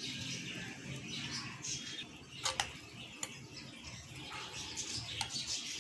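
A metal spoon beating a frothy raw egg and chopped-vegetable mixture in a bowl: wet swishing with a few sharp clinks of the spoon against the bowl.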